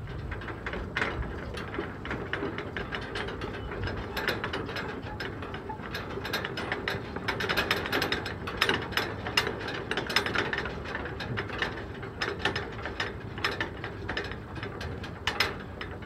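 Wooden suspension footbridge creaking and clicking under footsteps, with many irregular sharp creaks that come thickest in the middle.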